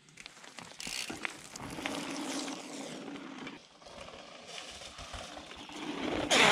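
Downhill mountain bike rolling over a loose gravel trail, with small crunches and clicks, then riding hard into a muddy puddle near the end: a sudden loud rush of splashing water.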